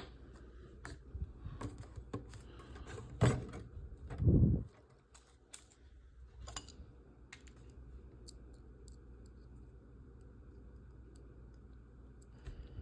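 Scattered small clicks and taps of a screwdriver and tiny screws on model kit parts as a screw is driven in. A sharper click comes about three seconds in, then a brief low, dull bump.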